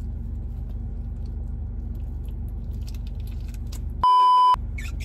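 Steady low hum of an idling car heard inside the cabin, with faint rustles and clicks of handling. About four seconds in, a loud half-second censor bleep, a single pure high tone, replaces all other sound.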